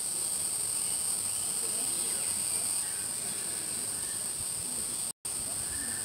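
Steady, high-pitched insect chorus, several shrill tones held together without a break, cut off for a moment about five seconds in.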